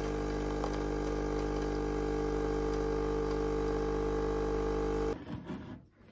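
Automatic espresso machine's pump running with a steady hum as coffee pours from its spouts into a mug, cutting off suddenly about five seconds in.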